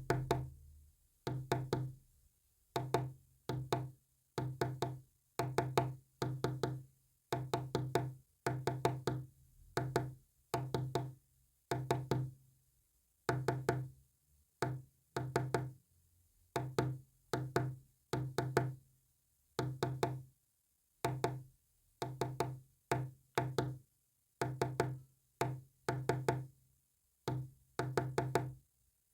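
Morse code sent as a low tone, keyed on and off in short and long beeps (dots and dashes) that come in groups with brief pauses between them.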